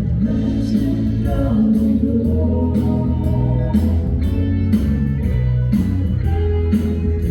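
A song with singing over guitar, bass and a steady drum beat.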